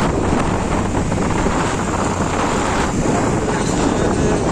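Wind rushing over the microphone with steady engine and road noise from a moving vehicle in traffic.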